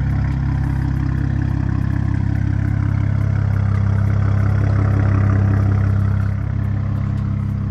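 BMW E92 335is twin-turbo inline-six (N54) idling through a full straight-pipe exhaust with no cats, resonator or muffler: a loud, steady, deep drone. It swells slightly and settles back down about six seconds in.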